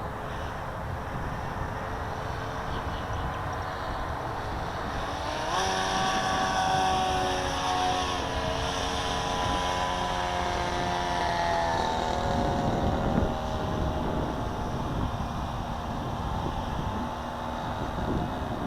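Electric motor and propeller of a Sky Surfer Pro RC foam plane whining in flight, throttled up about five seconds in and eased back off about halfway through, over wind noise on the microphone.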